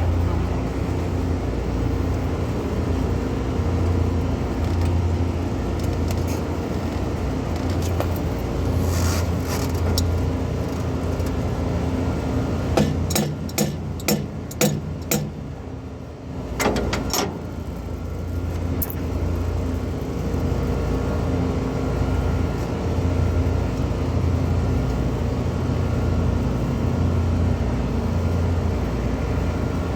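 Steady low machinery hum, with a handful of sharp metallic clinks and knocks of tools on metal about halfway through.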